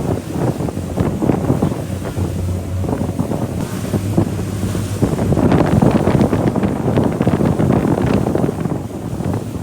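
Wind buffeting the microphone on a moving boat, with water rushing and splashing against the hull. It grows louder about halfway through.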